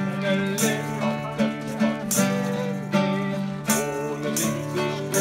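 Instrumental music, likely guitar-led, with a melody over held low notes and short sharp accents every second or so.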